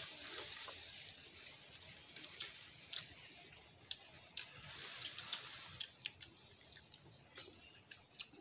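Eating by hand: faint, irregular clicks and small wet smacks as several people pick apart fish and eat, over a soft steady hiss.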